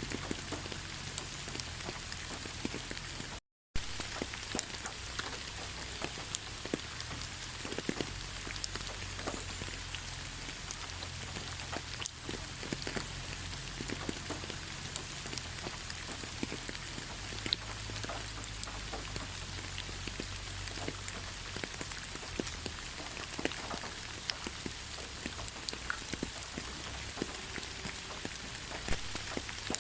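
Gentle rain falling steadily, with many individual drops ticking on a surface. The sound cuts out completely for a split second about three and a half seconds in.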